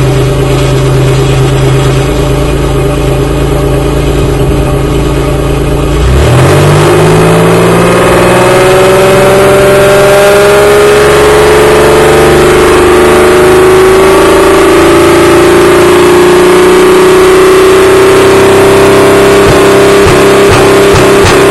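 Supercharged V6 of a 1998 Pontiac Grand Prix GTP, fitted with a smaller 3.4-inch supercharger pulley and a cold air intake, running steadily at first. About six seconds in it picks up sharply into a whine that keeps climbing slowly as the engine pulls.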